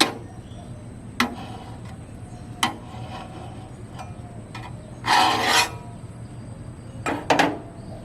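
Metal spatula knocking and scraping on the steel top of a Blackstone griddle while chopping up eggs: a few separate taps, one longer scrape a little past halfway, and a quick double tap near the end.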